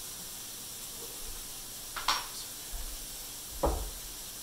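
Mushrooms sizzling faintly and steadily in a frying pan on the cooktop, broken by two brief sharp sounds about two and three and a half seconds in.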